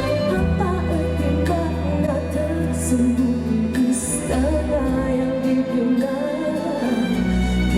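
Music: a woman singing with a wavering held voice over sustained bass notes that change every few seconds.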